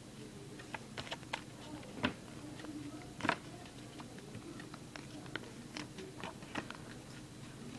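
Origami paper being folded and creased by hand: soft rustling with scattered small clicks and ticks of fingers pressing along the fold.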